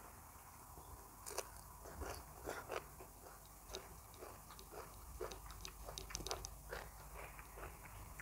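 Close-miked chewing of a crisp bite of fresh lettuce and vegetables: irregular crunches and wet mouth clicks, starting about a second in.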